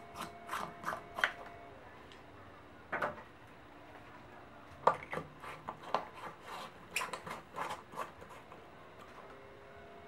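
A compact fluorescent bulb being twisted out of a plastic lamp socket and an LED bulb twisted in: light clicks and scraping rubs, coming in spells with quiet gaps between.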